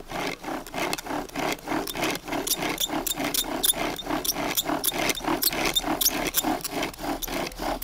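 Bow drill being worked with slow, light strokes to burn in the set: the bow runs back and forth in a steady rhythm of about five strokes a second, and the spindle rasps and squeaks against the hearth board and the fatwood bearing block.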